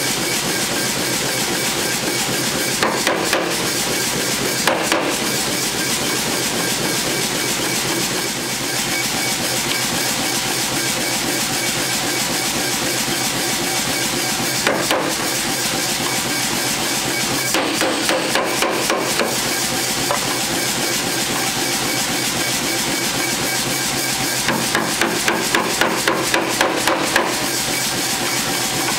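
Hammer blows on a hot steel tong blank in a vise-held forging tool: short groups of sharp metal strikes, a few near the start, a handful past the middle and a quicker run of about ten near the end, over a constant rushing noise.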